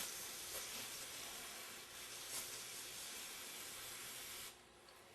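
Steady hiss of a pressurised spray blasting oil off a hydraulic pump plug, cutting off suddenly about four and a half seconds in.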